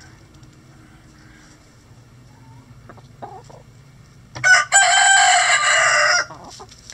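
A bantam rooster crowing once, a loud crow of about two seconds that starts with a short note, breaks briefly, then holds. Soft clucking from hens comes a little before it.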